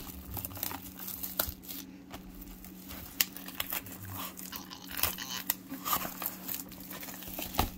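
Clear plastic shrink-wrap being torn and peeled off a cardboard trading-card box, with irregular crinkling and sharp crackles.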